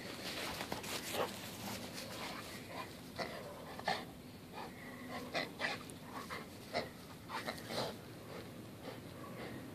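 English cream golden retriever panting and chewing a stuffed hedgehog toy, with a scattering of short, irregular sharp sounds.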